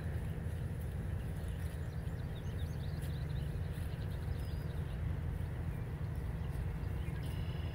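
Dairy cows grazing a grass, alfalfa and clover pasture, tearing and chewing the forage, over a steady low rumble, with one faint high chirp midway.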